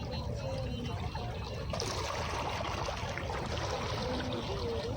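Gentle sea waves washing onto the beach, the wash swelling about two seconds in, over a steady low rumble.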